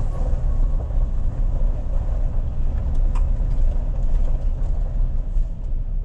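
Steady low rumble inside the cab of a Toyota Tundra pickup driving on a gravel road, with a single light click about three seconds in.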